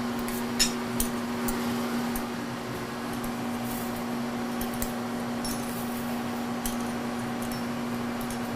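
Steady electric-motor hum of shop machinery, with a scattering of light metallic clicks and clinks, most of them in the first couple of seconds.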